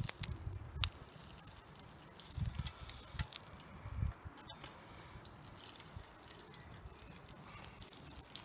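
Beef tallow melting on a hot campfire grill, crackling and popping in scattered little spits, with a few dull handling bumps.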